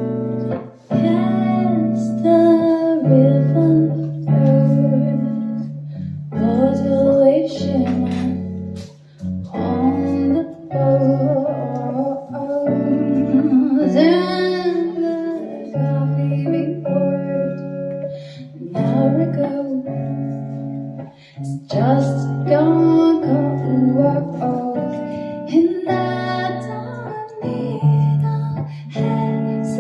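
Live music: the opening of a dream-pop song, with guitar and a female voice singing.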